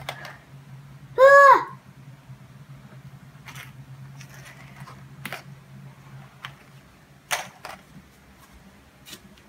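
A child's short high exclamation about a second in, a single note that rises and falls, followed by scattered light clicks and knocks from handling, over a low steady hum.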